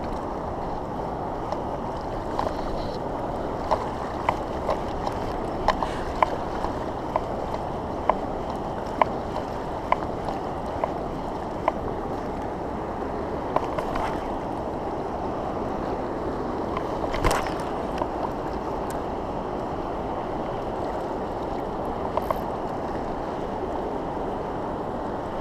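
Strong river current rushing past, a steady wash of water. Over the first half there is a string of short, sharp clicks about once every half second to second, and a louder single click about 17 seconds in.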